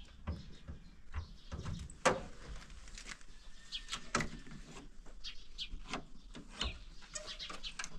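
Scattered knocks and clatter with a few short high chirps; a sharp knock about two seconds in is the loudest.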